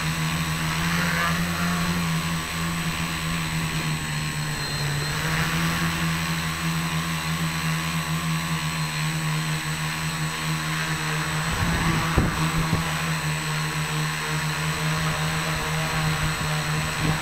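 Tricopter motors and propellers humming steadily, heard through the onboard keychain camera's microphone. A few low thumps come about twelve seconds in.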